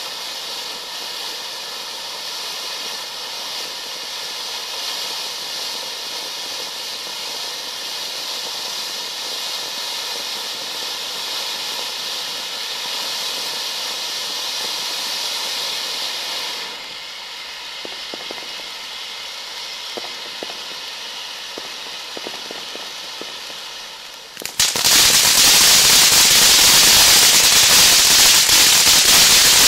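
Spartan Scream fireworks fountain spraying sparks with a steady hiss that carries several faint steady tones. Midway a few sharp pops come through, and near the end it turns abruptly to a much louder, dense crackling.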